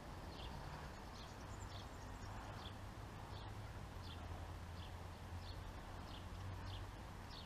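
Faint outdoor ambience: a small bird gives short, high chirps about twice a second over a steady low hum.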